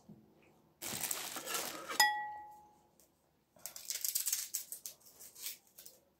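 A crinkling rustle, then a single sharp clink that rings on for a moment about two seconds in, followed by a run of crisp scraping clicks from a small knife cutting an onion held in the hand.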